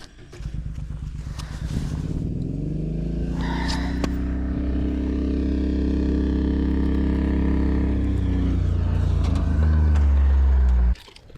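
An engine running steadily, its pitch rising slightly over the first couple of seconds, then cutting off abruptly near the end.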